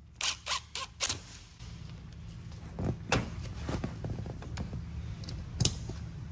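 Cordless drill driving a stainless self-tapping snap into a bimini frame's aluminium square tubing, heard as a string of separate sharp clicks and knocks, a cluster near the start and more between about three and six seconds in.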